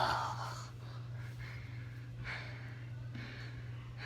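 A man breathing hard after a set of front squats. A loud exhale at the start is followed by fainter heavy breaths about one a second.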